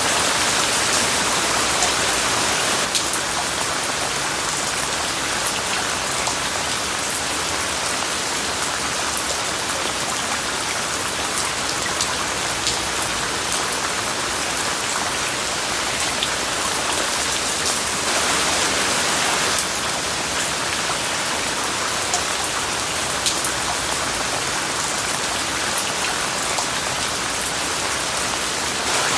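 Steady rain with fine scattered drop ticks, blended with an even hiss of white noise.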